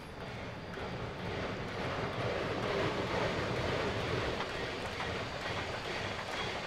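Shay geared steam locomotive No. 6 working steam on a runby, its exhaust and running gear growing louder over the first two seconds as it approaches, then holding steady.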